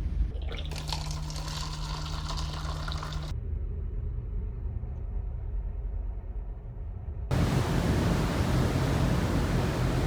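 Rushing water and wind noise aboard a ferry, with a steady low engine hum in the first few seconds. The sound changes abruptly twice: it dulls to a low rumble about three seconds in, then turns back to loud wind and water noise about seven seconds in.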